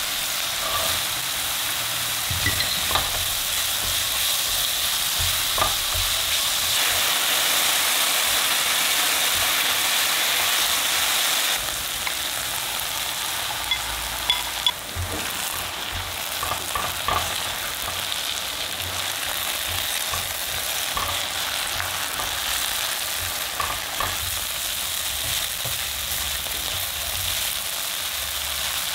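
Finely chopped onion and potato sizzling in oil in a nonstick pan while a silicone spatula stirs them. The sizzle drops a little about twelve seconds in; beaten eggs then go in and are stirred through, with light scrapes of the spatula against the pan.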